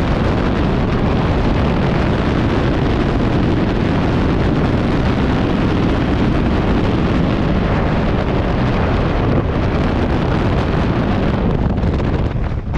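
Freefall wind rushing over a helmet camera's microphone, a loud steady rush of air. Near the end it thins out, with the parachute open overhead.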